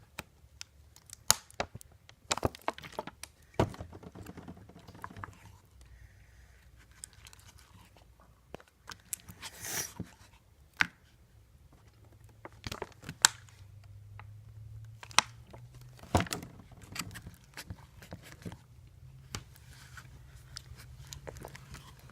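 A utensil clicking and scraping against a bowl while glue and borax solution are stirred into slime, with irregular sharp taps and a longer scrape about ten seconds in. A low steady hum runs underneath.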